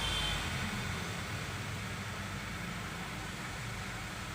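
Skoda Laura TSI petrol engine idling steadily, a low even hum, no longer cutting out now that a new fuel pump control module is fitted.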